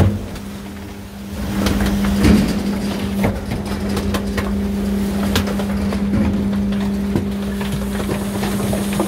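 Electric rear-loader garbage truck's compactor cycling: a steady hum of the packer drive while the blade sweeps trash through the hopper. Plastic and cardboard crack and snap now and then.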